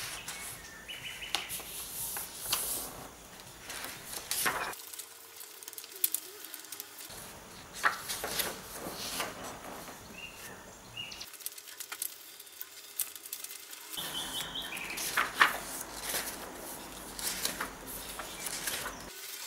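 Paper pages of a thick handbound book being turned and leafed through by hand: repeated crisp rustles and flutters of flipping pages.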